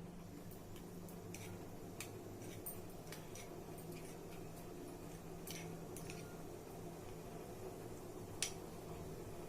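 Faint, scattered clicks of a spoon against a small bowl as soya powder is mixed with a little water, over a steady low hum.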